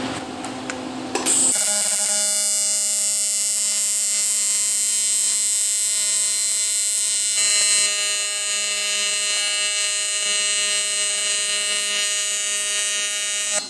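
AC TIG welding arc, running aluminum bronze filler into a cast iron casting, buzzing steadily. The arc strikes about a second and a half in and cuts off just at the end.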